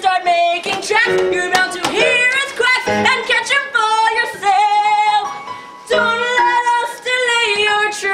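A woman singing a stage-musical song in phrases, holding one longer note about halfway through.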